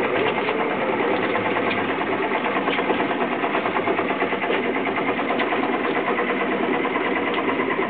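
Boat motor idling steadily with a fast, even rattle.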